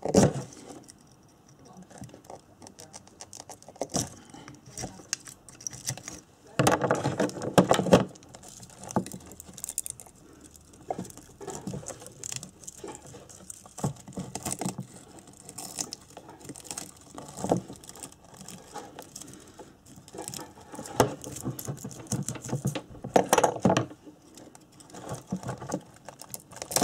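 A small screwdriver scraping and picking at the copper winding of a motorcycle ignition stator coil as the wire is unwound, with irregular clicks and scratches and the rustle of loose wire. The scraping comes in two louder spells, one about seven seconds in and one near the end.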